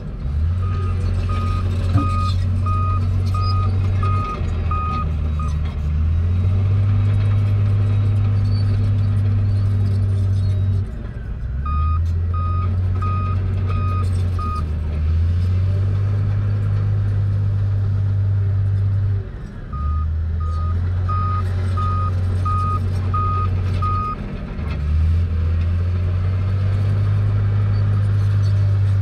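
Komatsu crawler bulldozer's diesel engine running steadily under load, with its reversing alarm beeping in three spells of evenly spaced beeps as it backs up. The engine note dips briefly each time it shifts direction.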